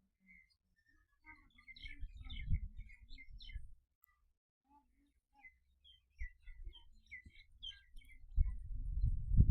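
Small birds chirping in quick twittering runs, twice, over an irregular low rumble that grows louder near the end.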